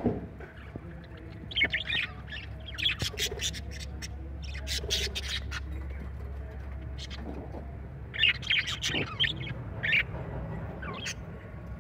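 Budgerigars chirping and chattering in clusters of short high calls that come and go, over a steady low hum.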